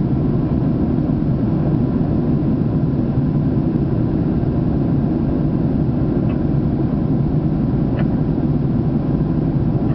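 Airplane noise: a steady, low rumble that holds an even level throughout, with faint high chirps about six and eight seconds in.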